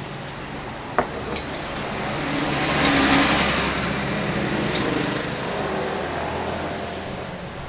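A road vehicle passing on the street, swelling to its loudest about three seconds in and then fading away. A spoon clinks sharply on a porcelain bowl about a second in.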